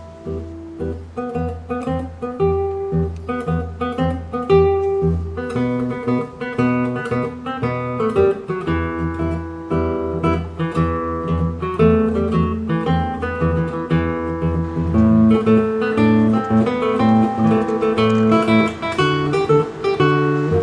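Background music led by plucked acoustic guitar, a continuous melody over sustained low bass notes.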